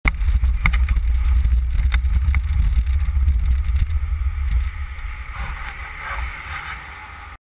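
Low rumble of a Mango velomobile rolling along, picked up by a camera mounted on its shell, with a few sharp clicks. The rumble dies down about five seconds in as the velomobile comes to a stop, leaving quieter street noise.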